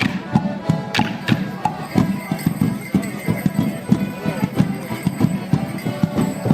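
Band playing a Morris dance tune, with the dancers' feet beating out a steady rhythm of sharp knocks.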